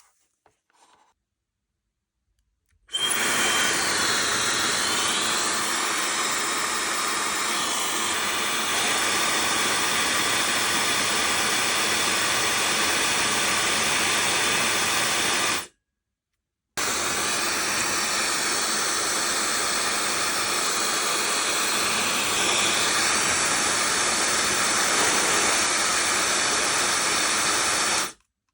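Laifen SE Lite high-speed hair dryer running: a loud, even rush of air with a faint high whine. It starts suddenly about three seconds in, stops for about a second in the middle, then runs on until just before the end.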